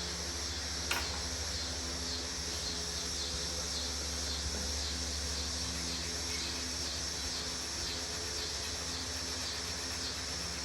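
Steady background of insects chirping, with a low steady hum beneath and a single click about a second in.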